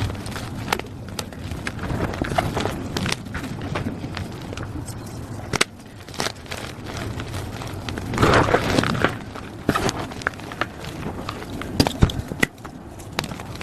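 Plain gym chalk being crushed, crunching and crackling in irregular small cracks, with a louder, denser stretch of crunching about eight seconds in.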